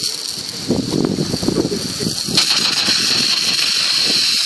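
Water from a fire hose nozzle spraying upward and falling back as a steady hiss and splatter, growing louder about two and a half seconds in.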